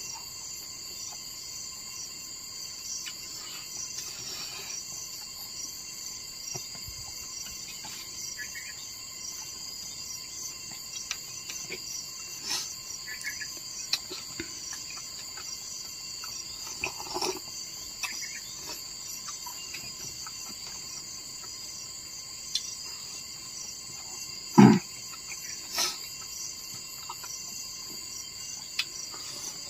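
Steady, high-pitched, pulsing chorus of insects, with a few scattered knocks and one louder thump about three quarters of the way through.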